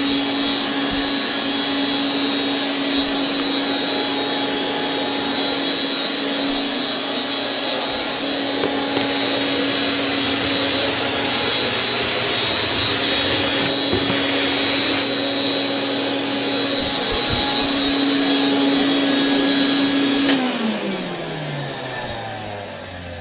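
1949 Electrolux Model XXX canister vacuum running, a steady motor hum under a strong rush of air. About twenty seconds in it is switched off with a click, and the motor winds down with its pitch falling.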